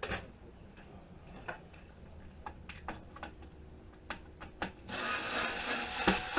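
Hand tools and loose parts clicking and tapping against the metal and plastic of an appliance being taken apart, with a longer scraping, creaking rub about five seconds in.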